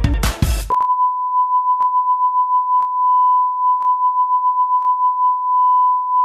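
Music cuts off under a second in. It gives way to a steady, unbroken electronic beep tone of one pitch, with a faint click about once a second.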